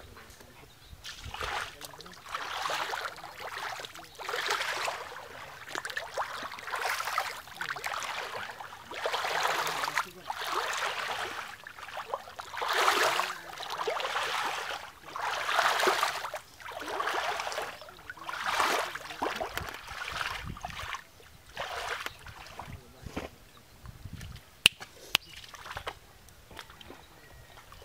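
Shallow muddy water sloshing and splashing in repeated surges, about one every one to two seconds, as someone wades and churns it. The surges ease off after about twenty seconds, and a single sharp click comes near the end.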